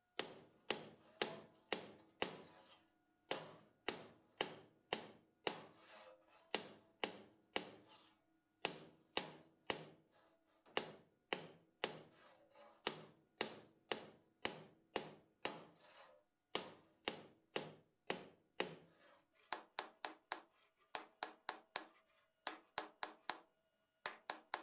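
Ball-peen hammer striking an antique Disston hand saw blade laid on a steel block, in runs of about three sharp, ringing blows a second broken by short pauses; near the end the blows come lighter and quicker. The hammering is taking a bow out of the saw blade.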